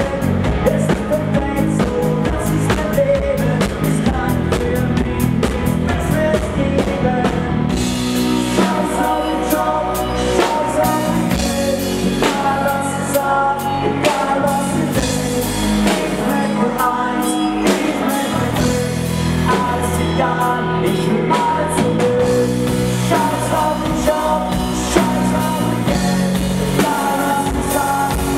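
Live party-rock band playing: a male lead vocal over drum kit, electric guitar and keyboard. The cymbals and singing come in about eight seconds in, and the full band plays on without a break after that.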